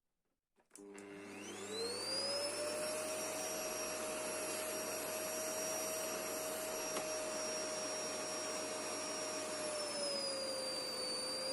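Repaired vacuum cleaner switched on: a click, then its motor spins up with a rising whine and runs steadily at full speed, the pitch sagging briefly and recovering near the end.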